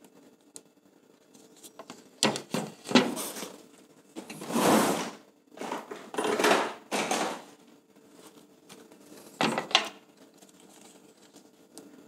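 Bursts of clinking and clattering from small metal screws and camera hardware being handled on a tabletop, coming in several short spells with pauses between them.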